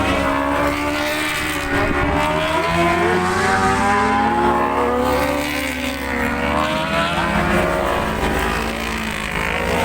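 Several racing superbike engines at high revs, their pitches rising and falling as the bikes accelerate and change gear on the circuit.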